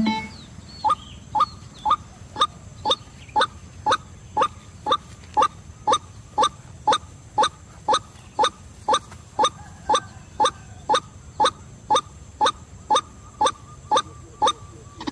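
White-breasted waterhen calling, a long run of short nasal "kwak" notes repeated evenly about twice a second, each note rising in pitch.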